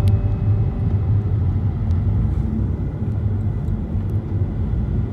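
Steady low road rumble of a car driving on a freeway, heard from inside the cabin.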